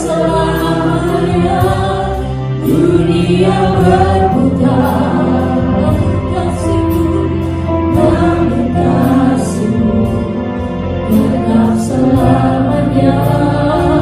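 A live church worship band playing an Indonesian-language worship song. Several voices sing the melody together over keyboard, bass and a drum kit, with regular cymbal hits.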